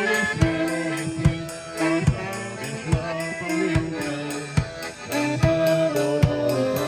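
Live band music: a melody of long held notes over a steady drum beat, one stroke about every 0.8 seconds.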